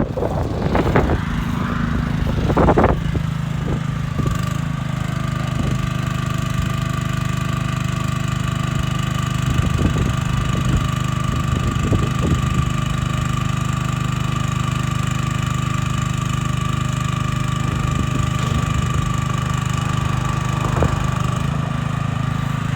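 Small Honda gasoline engine running steadily at part throttle to drive the hydraulic pump, with a steady whine above the engine note and a few light knocks.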